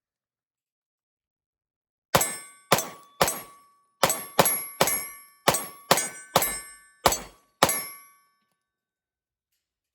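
Rapid string of eleven 9mm pistol shots from a Glock 45 with a Radian Ramjet compensator, about half a second apart, starting about two seconds in. Each shot is followed by the ringing of the steel target.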